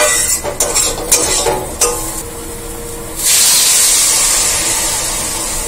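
A metal spatula scraping and tapping in an aluminium kadai of vegetables frying in oil. A little over three seconds in, water poured into the hot pan sets off a loud sizzling hiss that slowly dies down: the liquid going in to start a curry broth.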